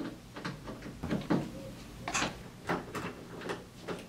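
2 mm hex driver backing hex screws out of the edge of a metal light-fixture housing: a string of short, irregular clicks and taps of tool on screw and metal.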